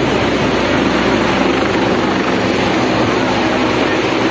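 Helicopter flying low close by: a loud, steady din of rotor and engine.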